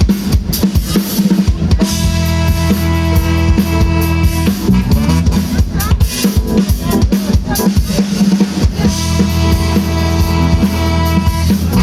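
Live brass band over a PA during a sound check: the drum kit plays alone at first, then held horn and bass chords come in over the beat about two seconds in, break off, and come back near the end.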